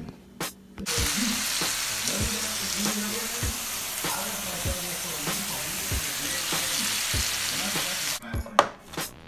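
Food sizzling in a hot pan: a steady frying hiss that starts about a second in and stops sharply near the end.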